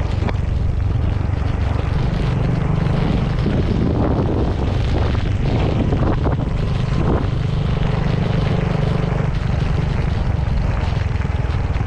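Motorcycle engine running steadily while riding on a wet road in the rain, a low constant hum under a continuous hiss of rain and tyre spray.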